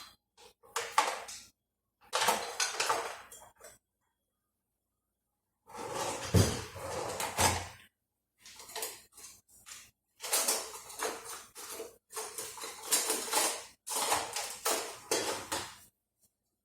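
A kitchen utensil scraping and clattering against cookware in repeated bursts of one to two seconds, with short silent gaps between them.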